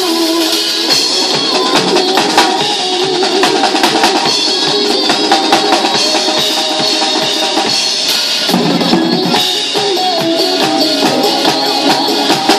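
A drum kit played along to a recorded pop song. Kick drum, snare and cymbal strikes sit over the track's sustained melody.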